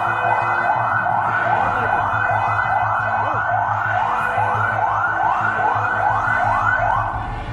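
A siren whooping in quick rising sweeps, about two a second, that stops about seven seconds in.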